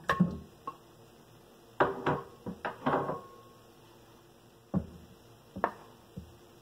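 A ceramic bowl knocking and scraping against a stainless steel mixing bowl as ricotta is tipped out, the steel bowl ringing briefly after a couple of the knocks. A few single knocks follow further apart as a wooden cutting board is brought against the bowl.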